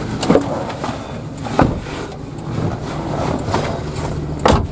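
Car engine running with a steady low hum, with a few sharp knocks.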